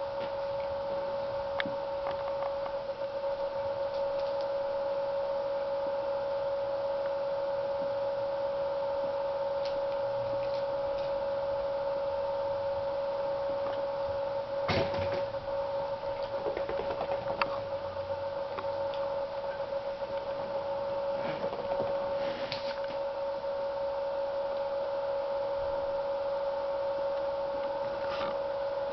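A steady, high-pitched electrical hum throughout, with a few brief knocks and scuffles from a Norfolk terrier puppy playing with tennis balls on a tiled floor.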